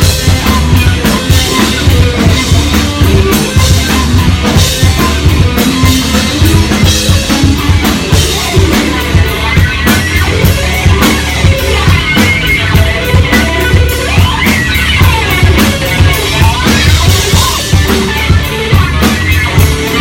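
A rock band playing loud live music: electric guitars over a drum kit keeping a steady beat, with a heavy low end.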